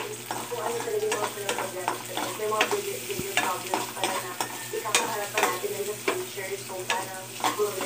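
Metal spoon scraping and knocking against a pan, several strokes a second, as sliced onions are stirred and sizzle in hot oil.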